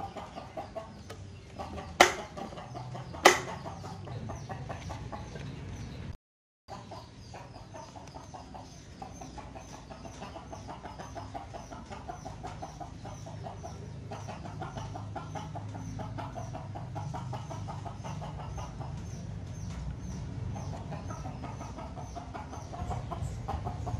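Chickens clucking steadily in the background, with two sharp clicks about two and three seconds in.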